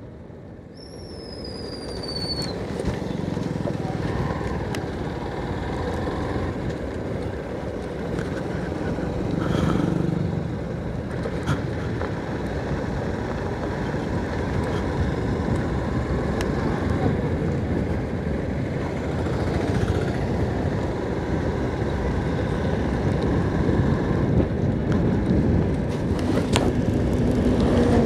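Motorcycle ridden at speed on an open road: wind rushing over the handlebar-mounted microphone, with engine and tyre noise underneath. It builds up over the first few seconds as the bike gets going, then holds steady.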